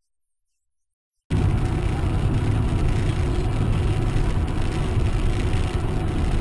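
Silence for about a second, then a steady run of a moving car's road and engine noise, heaviest in the low end.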